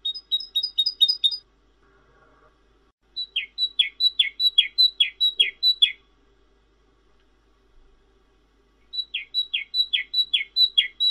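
Cinereous tit (glatik batu/wingko) singing: three bursts of quick, clear repeated notes, each a high whistle dropping into a falling slur, about three notes a second, with short pauses between bursts.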